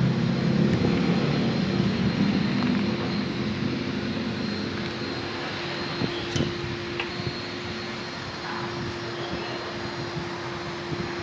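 A motor running steadily, with a few light clicks.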